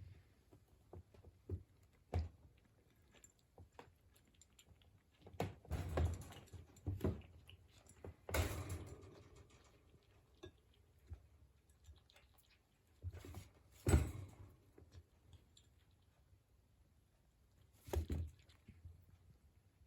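A kitten playing alone: scattered soft knocks, thumps and scuffles at irregular times, busiest a few seconds in, with the sharpest knock about two-thirds of the way through.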